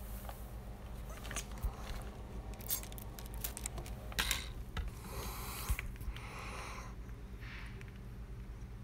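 A steady low hum from the air-conditioning equipment, with scattered clicks and rustles of handling close to the microphone, and a few short breathy hisses about four and five seconds in.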